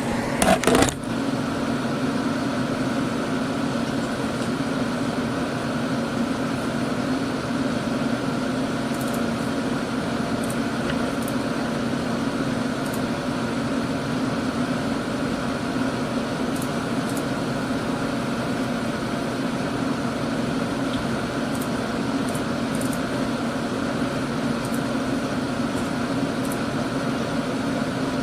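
Desktop computer under heavy load giving off a loud, steady pitched noise over the rush of its fans, which the owner believes comes from the graphics card or the power supply. A few sharp knocks sound in the first second.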